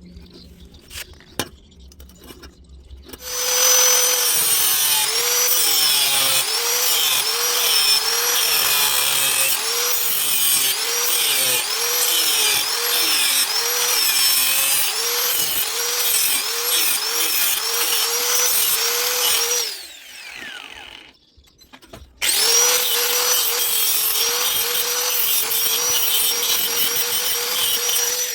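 Handheld angle grinder running in two long stretches, with a short break between. Its pitch sags and recovers again and again as the disc is pressed into and eased off the steel pipe.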